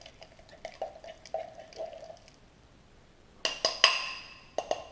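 Metal utensil stirring warm, chopped soft-plastic bait in a glass measuring cup. First soft scraping, then from about three and a half seconds in several sharp clinks against the glass that ring briefly.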